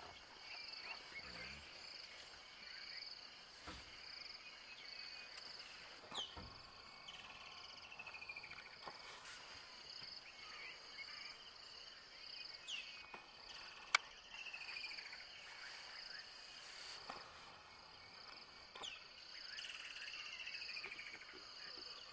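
Steady chorus of insects trilling in a fine, even pulse, with occasional short falling chirps and a single sharp click about 14 seconds in.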